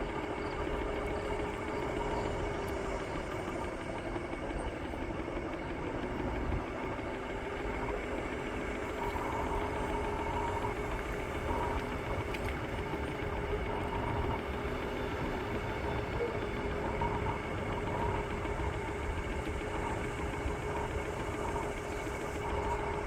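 Bird electric scooter under way: a steady whine from the motor over rumbling road and wind noise. The whine dips in pitch about four seconds in, then climbs back as the scooter picks up speed.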